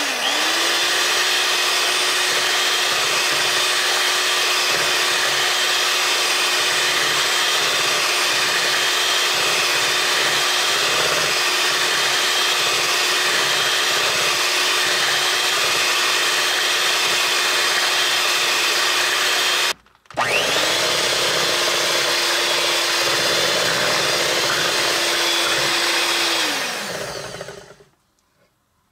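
Sunbeam handheld electric mixer running at medium speed, its beaters whipping chocolate mousse filling in a glass bowl with a steady motor whine. About twenty seconds in it cuts out for a moment and starts again, then winds down and stops shortly before the end.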